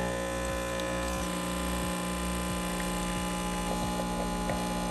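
Capsule espresso machine's pump running a steady, even buzzing hum while it brews a large shot into a glass jar.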